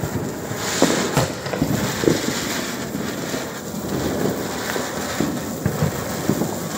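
Ground spinner firecracker (chakri) whirling on the floor: a steady rushing noise with sharp crackles and pops scattered throughout, the loudest pops about one and two seconds in.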